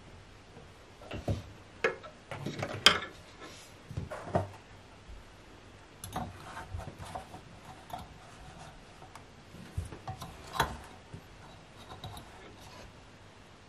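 Irregular light knocks, taps and clicks of household objects being handled, the sharpest about three seconds in.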